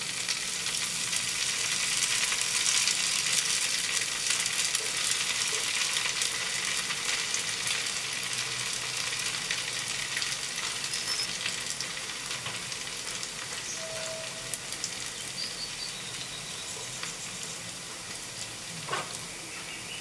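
Vermicelli pakoda batter deep-frying in hot oil in a small pan: a dense, crackling sizzle. It is loudest a couple of seconds in, as fresh pieces go into the oil, and then slowly eases.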